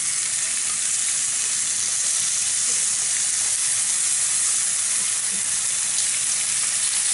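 Chicken breast frying in hot oil in a frying pan: a steady, even sizzle.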